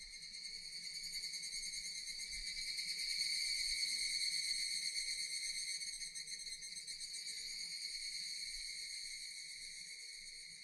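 Japanese cicadas singing in chorus: a steady, high buzzing drone that swells a few seconds in and eases off toward the end.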